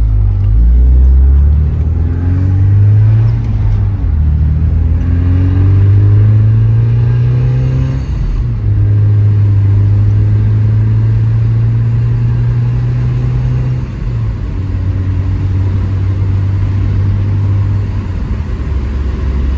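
Porsche 944's four-cylinder engine on the road, rising in pitch several times as the car pulls up through the gears, then holding a steady cruise. The pitch drops about fourteen seconds in and again near the end.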